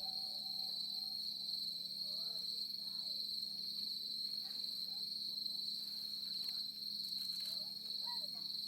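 Crickets chirping steadily in one continuous high, even tone, with faint voices murmuring in the background.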